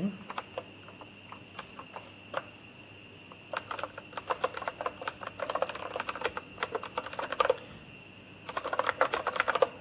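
Typing on a computer keyboard: a few scattered keystrokes, then two quick runs of typing, one from about three and a half to seven and a half seconds in, and another near the end.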